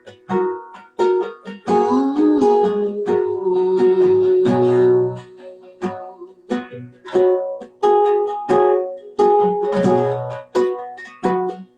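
A guitar-type plucked string instrument strummed in rhythmic chords, each strum ringing out briefly: an instrumental break in a song, with no singing.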